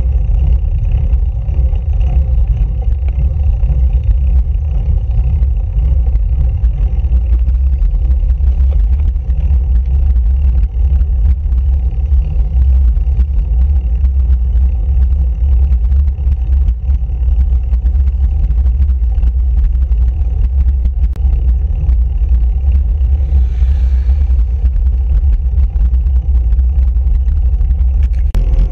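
Wind buffeting the microphone of a handlebar-mounted camera on a moving road bike: a loud, steady, fluttering low rumble.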